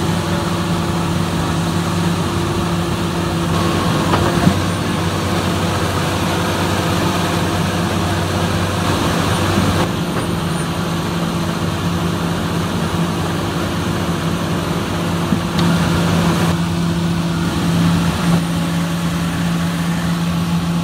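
Komatsu excavator's diesel engine running steadily while the boom and bucket dig in wet mud.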